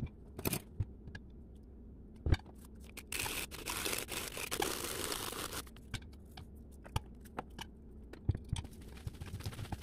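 Sesame salt shaken from a plastic shaker bottle over blanched spinach in a stainless steel bowl: a dense hiss of falling granules for about two and a half seconds in the middle. Scattered clicks and knocks of handling come around it, the loudest a sharp knock a little over two seconds in.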